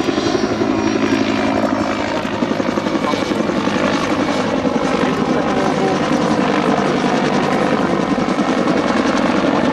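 Westland Whirlwind HAR.10 helicopter in flight: its main rotor beats in a rapid, steady chop over the drone of its Gnome turboshaft engine.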